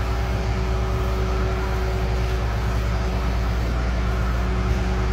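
Corded electric dog-grooming clippers buzzing with a steady low hum as they shear through a dog's coat.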